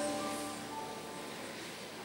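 Children's choir ending a song, its last sung notes fading away in the church's reverberation.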